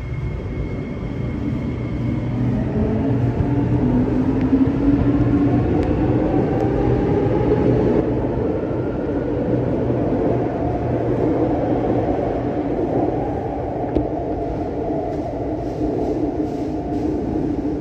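Kawasaki & Nippon Sharyo C751B metro train pulling away, its traction motors whining in several tones that climb steadily in pitch as it accelerates and then level off, over a low hum and the rumble of wheels on rail.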